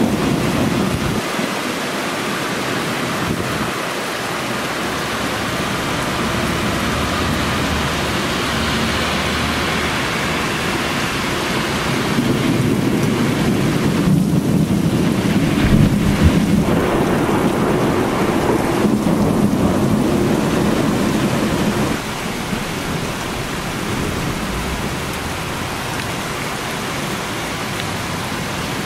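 Heavy rain pouring steadily, with a long low rumble of thunder that builds a little before the middle and runs about ten seconds before cutting off suddenly.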